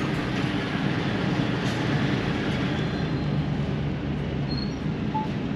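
DAF XF truck running at low speed, heard from inside the cab: a steady diesel engine rumble under tyre and road noise.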